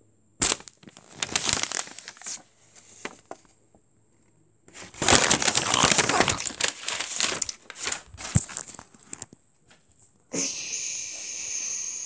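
Handling noise: paper and cloth rustling and rubbing close to the microphone, with a sharp click about half a second in and a long loud stretch of rustling in the middle. A steady hiss starts near the end.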